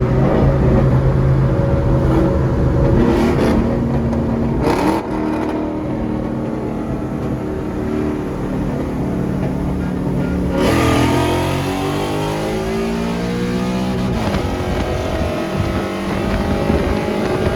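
Performance car V8 engines running, with a short rev about four seconds in; about ten seconds in a louder car comes in, its engine pitch sweeping up and down as it accelerates or passes.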